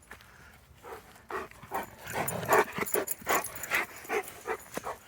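Dog whining and yelping in a rapid run of short calls, getting louder from about two seconds in.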